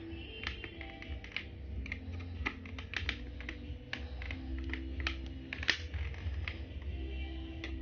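Phillips screwdriver turning a screw in a plastic modem case: a run of irregular light clicks and ticks, several a second.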